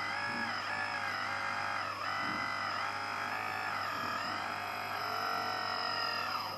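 Electric hydraulic pump of an RC model construction machine whining, its pitch rising and falling repeatedly as the controls are worked.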